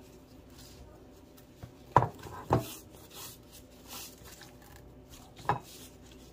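Gloved hands rubbing spice seasoning into raw fish fillets on a ceramic plate: soft rubbing with three sharp knocks, two close together about two seconds in and one more near the end.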